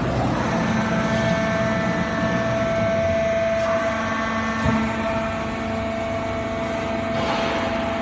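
Hydraulic foam baling press running with a steady mechanical hum and a clear steady tone. There is a single short knock about halfway through, and a brief hiss shortly before the end.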